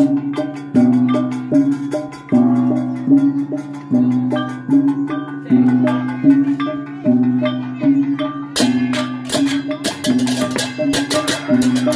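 Balinese gamelan accompanying a barong: hand-held gongs ring out a repeating pitched note about every three-quarters of a second, over kendang drum strokes. About eight and a half seconds in, rapid clashing strokes join in and the playing grows denser.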